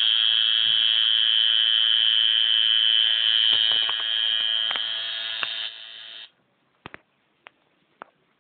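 Tattoo machine buzzing steadily, getting quieter after about four seconds and stopping about six seconds in, followed by a few light clicks.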